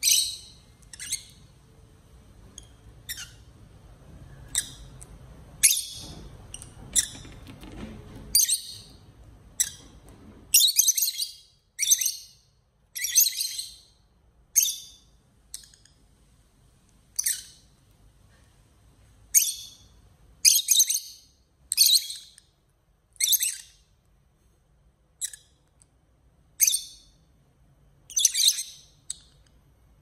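Lovebirds squabbling in short, shrill chirps and squawks, roughly one call a second, some coming in quick clusters.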